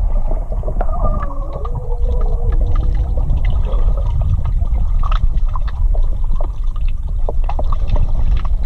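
Water sloshing and bubbling around a camera held underwater in a swimming pool: a dense, muffled low rumble with many small clicks, and a wavering tone for a couple of seconds near the start.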